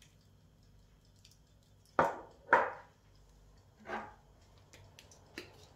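Three short knocks of a spice jar being handled and set down on a stone countertop, two loud ones close together followed by a softer one, with a few faint clicks after.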